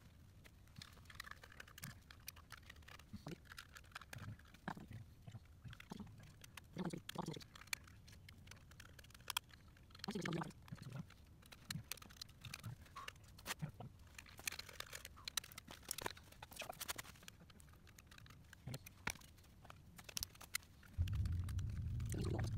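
Scattered light metal clicks and taps of hand tools and small parts being worked at a truck's drive-axle hub studs. About 21 seconds in, a steady low hum starts and is louder than the clicking.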